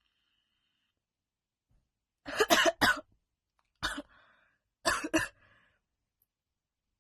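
A young woman coughing in short fits brought on by smoking: about three quick coughs a little over two seconds in, a single cough near four seconds, then two more around five seconds.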